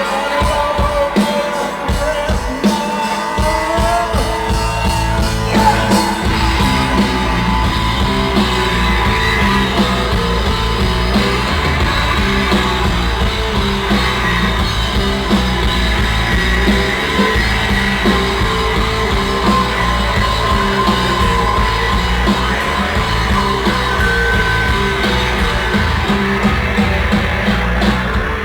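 Live rock band playing loud, heavy music, recorded on a phone's microphone. The sound is thinner for the first few seconds, then the full band comes in with a heavy low end about six seconds in.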